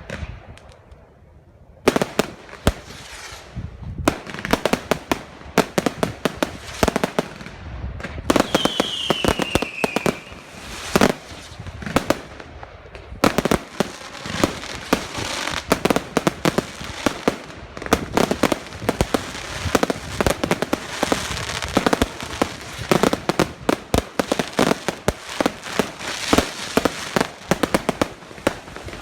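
Fireworks going off: after a brief lull, sharp bangs start about two seconds in. There is a short falling whistle around nine seconds, and a dense run of rapid bangs fills the second half.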